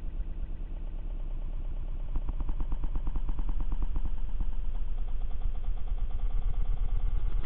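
Outboard motor running as the aluminum boat moves, with a dense, rapid rattle that grows louder about two seconds in.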